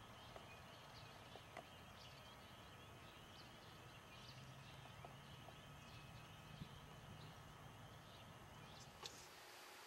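Near silence: faint outdoor background with scattered faint, high chirps or ticks.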